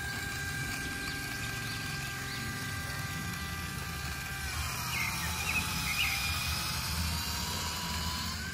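Small electric motor and plastic gearbox of a toy RC tractor whirring steadily as it tows a loaded trailer through mud. Its pitch drops about halfway through and climbs back near the end.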